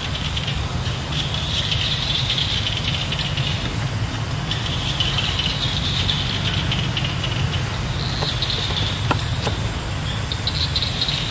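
Outdoor forest ambience: a steady low rumble with insects buzzing in waves, and two small clicks about nine seconds in.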